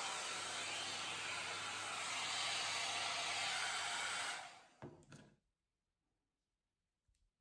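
Jomarto hot-air dryer and volumizer brush blowing steadily, then switched off a little over four seconds in, its airflow and fan dying away over about a second. A faint tap comes near the end.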